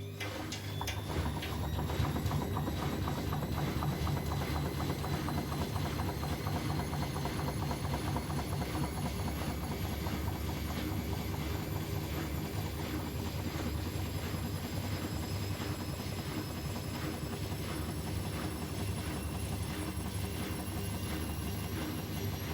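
Bosch Maxx WFL 248Y washing machine spinning an unbalanced load, with the drum rumbling and the motor whine climbing slowly in pitch as it speeds up. The noise builds over the first couple of seconds and then runs on steadily.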